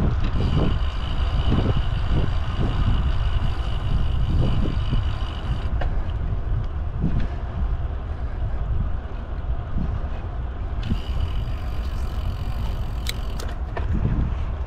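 Wind noise buffeting the microphone of a moving bicycle, with road traffic beside it. A steady high whine sounds for the first five seconds or so and comes back for a couple of seconds after about eleven seconds.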